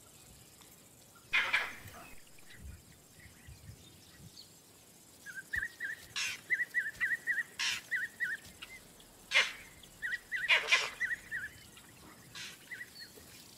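Vervet monkey alarm calls: about five harsh barks at irregular intervals, with runs of quick, repeated high chirps between them in the middle of the stretch.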